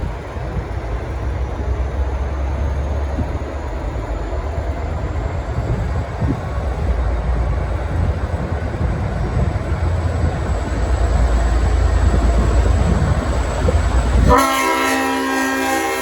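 V/Line N class diesel locomotive N459 pulling out with its train, the EMD V12 diesel and the wheels on the rails giving a steady low rumble. Near the end its Leslie RS5T five-chime air horn sounds suddenly, a loud chord of several notes held steady.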